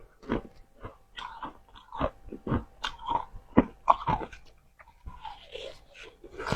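Close-miked crunching of soft, freshly formed humidifier frost being bitten and chewed, an irregular run of sharp crunches that is loudest about two to four seconds in.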